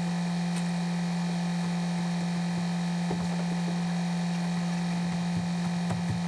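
A steady low hum with fainter steady tones above it, and a few faint knocks about three seconds and six seconds in.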